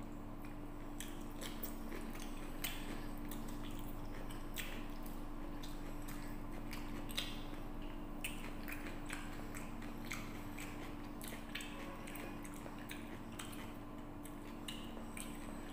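A person eating rice and curry with his hand: chewing and mouth sounds, with many irregular small clicks and smacks, over a steady low hum.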